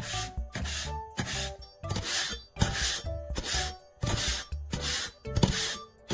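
Steel kitchen knife blade scraped repeatedly along sandpaper-covered rollers of a homemade sharpener, about two short strokes a second with a brief pause partway through. Background music plays underneath.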